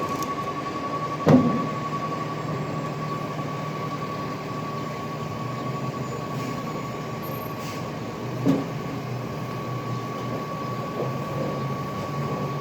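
Recycling truck's engine running under a continuous high-pitched beeping tone, the truck's strange beeping noise. Two loud clanks cut through, about a second in and again about seven seconds later.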